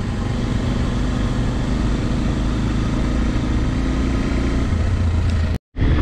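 Motorcycle engine running steadily while riding a rough dirt track, heard from the rider's own Zongshen Cyclone RX1, with wind and road noise over it. The sound cuts out for an instant near the end, then the engine is heard again.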